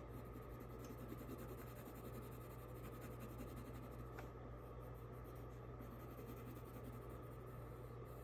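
Colored pencil scratching faintly and steadily on paper as it shades, over a low steady hum.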